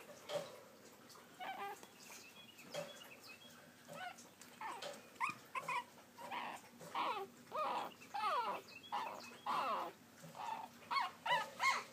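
Pekingese puppies whimpering and yipping: short, high, sliding cries, few at first and then coming quickly one after another from about four seconds in.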